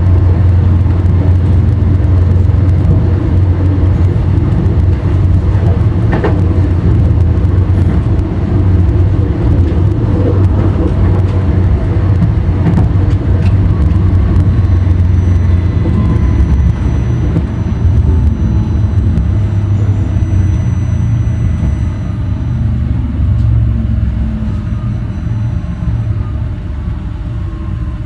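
NGT6/3 tram running along the line, a heavy steady rumble of wheels on rails. In the second half a faint motor whine slowly falls in pitch and the rumble eases off as the tram slows.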